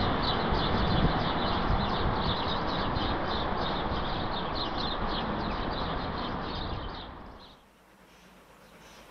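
A rake of passenger coaches behind a steam locomotive rolling away along the main line: a steady rumbling rail noise with a rapid high clicking, about four a second, fading slowly. It cuts off about seven and a half seconds in.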